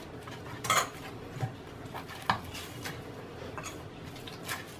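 Hands kneading soft, oiled dough in a stainless steel bowl: quiet squishing and rubbing, with a few light knocks and clinks against the steel bowl.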